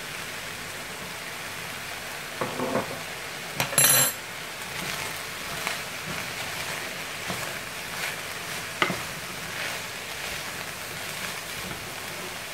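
Beef mince and chopped vegetables sizzling as they fry in a pan, stirred with a spatula that scrapes and taps against the pan now and then. A sharp knock about four seconds in is the loudest sound.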